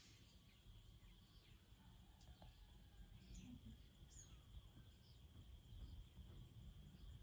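Near silence: faint outdoor background with a steady high insect drone over a low rumble, and a few short faint chirps scattered through.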